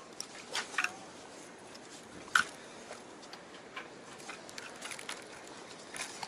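Scattered light clicks and taps from handling a spinning rod and reel while switching the metal jig, the sharpest a little over two seconds in, over a steady background hiss.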